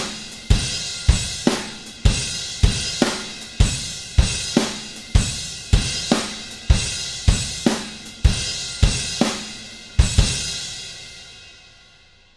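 Sampled acoustic drum kit from the EZdrummer 2 software, playing a programmed beat of kick, snare, hi-hat and cymbals at about two strokes a second. About ten seconds in it ends on a last hit that rings out and fades away.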